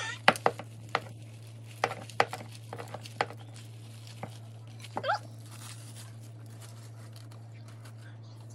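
Sharp clicks and taps of hands pressing ground beef flat in a glass pie dish on a plastic-wrapped counter, thickest over the first four seconds, over a steady low hum. A brief high squeak comes near the start and another about five seconds in.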